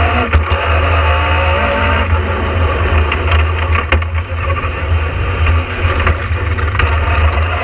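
Vauxhall 2.0-litre four-cylinder engine of a Talbot Sunbeam rally car running hard on a stage, heard from inside the cabin, with a strong low rumble and a few sharp knocks about a quarter second, two and four seconds in.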